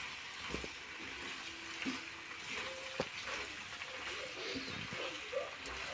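Silicone spatula stirring boiled macaroni and vegetables through a thick sauce in a metal pan: soft wet squelching with a few light clicks of the spatula against the pan, over a steady faint hiss.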